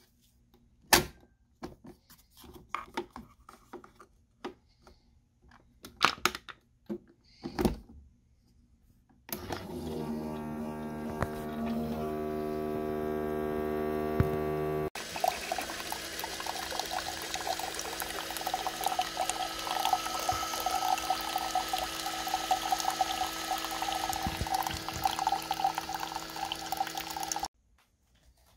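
Keurig single-serve coffee maker brewing a cup: a few clicks and knocks as it is loaded and closed, then its pump hums steadily for about six seconds. Then coffee streams into the mug for about twelve seconds and cuts off suddenly near the end.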